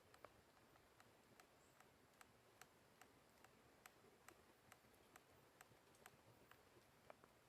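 Near silence with faint, regular ticks, about two or three a second.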